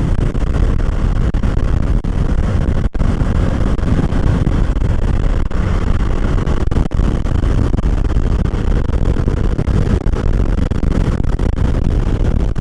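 Heavy wind noise buffeting a Boya BY-M1 lavalier mic on a moving motorcycle, a steady loud rumble. The mic picks up strong wind despite its windscreen.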